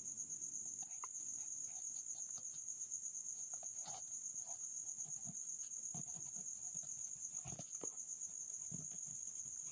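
A cricket trilling steadily, a continuous high-pitched pulsing tone, with a few faint scattered taps and knocks.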